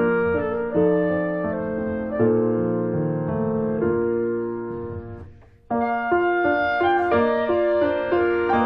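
Slow piano music with sustained chords, each note struck and then dying away. About five and a half seconds in it fades almost to silence, then comes back suddenly at full level.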